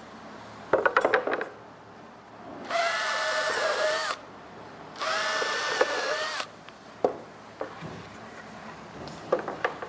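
Power drill boring pilot holes in pine trim boards, pre-drilled so the pine doesn't split: two steady runs of about a second and a half each, each sagging slightly in pitch as it ends. Around them come knocks and clatter of the wooden boards being handled, the loudest a burst about a second in.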